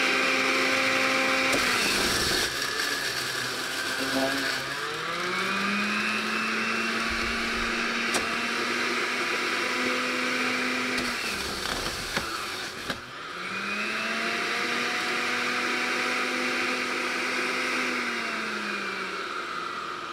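Centrifugal juicer's electric motor whirring as cucumbers are pushed down its feed chute. Its pitch sags under load and twice climbs back up, and near the end it winds down.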